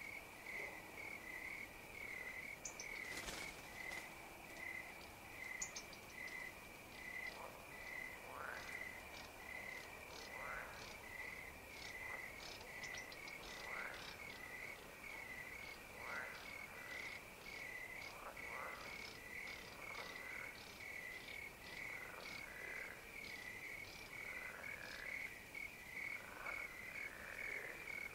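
A night pond chorus: crickets chirping in a steady, even pulse throughout, with frogs giving short calls that slide downward in pitch, repeating every couple of seconds from about a quarter of the way in. One sharp click a few seconds in.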